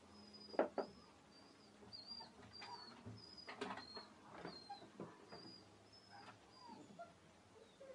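Kittens scuffling and tumbling in a wire cage: a few sharp knocks, the loudest pair just under a second in, with faint soft movement. Behind this, a steady series of short, high chirps repeats about twice a second.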